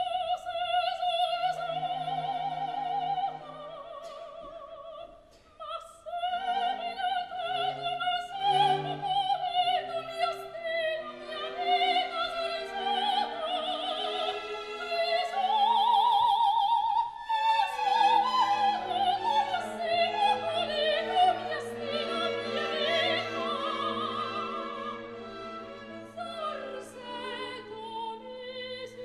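Opera: high voices singing with wide vibrato over an orchestra, several voices overlapping in the middle of the passage, with a brief drop in level about five seconds in.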